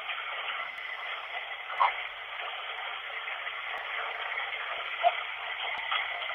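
Steady rushing hiss of running water, with two brief faint blips about two and five seconds in.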